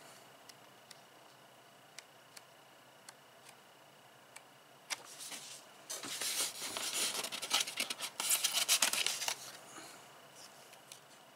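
Paper and cardboard being handled: a few light clicks and taps, then from about six seconds in, some three seconds of louder dry rustling and scraping as a hand slides over a cardboard box insert and picks up a small paper card.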